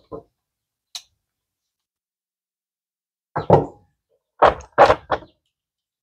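Knocks and clacks of hand tools and a metal crimping die being handled during a die change on a ratcheting crimper: a couple of light clicks early, then two clusters of louder clacks about three and a half and four and a half seconds in.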